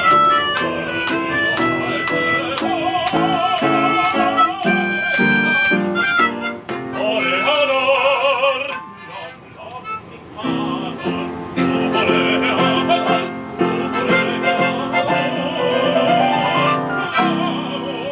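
Live piano accompaniment with an operatic voice singing with strong vibrato; the music eases off around nine seconds in, then the voice and piano come back in.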